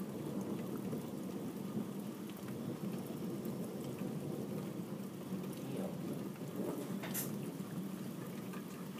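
Thunderstorm: steady rain with low, continuous rumbling thunder.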